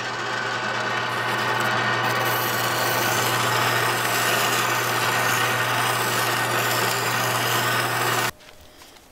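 Benchtop drill press running with a sanding drum in its chuck, grinding the edge of a hole in a sheet-metal plate to widen it: a steady motor hum with a rasping scrape over it, which cuts off suddenly about eight seconds in.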